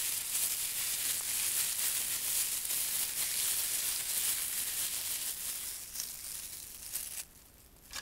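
Thin clear plastic wrapped around an apple, rubbed and crinkled by fingers close to the microphone: a continuous crinkling rustle that fades and stops about a second before the end.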